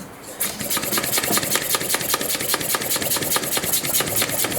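Ratchet wrench clicking in a fast, even run of sharp clicks as it is worked back and forth on the engine's crankshaft, turning the engine over by hand.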